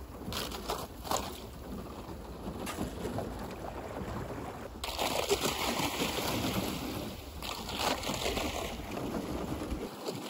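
Canoe hull moving over ice and water: a few knocks and crunches in the first second or so, then a louder, steady rushing and scraping from about five seconds in.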